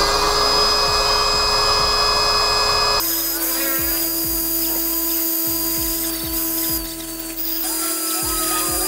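Small electric air pump spinning up and running steadily with a motor whine, inflating a car air bed. The pitch of the whine drops slightly about three seconds in.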